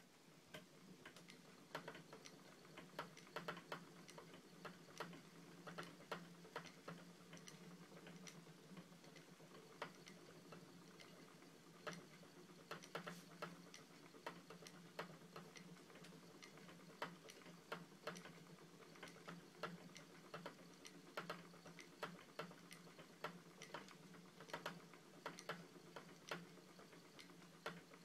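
Spinning wheel running during long-draw spinning: faint, irregular clicking from the wheel's moving parts, several clicks a second, over a low steady hum.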